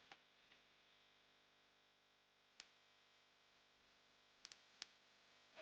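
Near silence, broken by a few faint clicks: one about midway and a quick cluster of three near the end.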